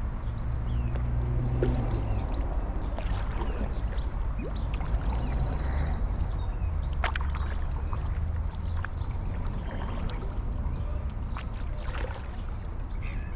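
Songbirds chirping, with one quick trill about five seconds in, over a steady low rumble of wind and water.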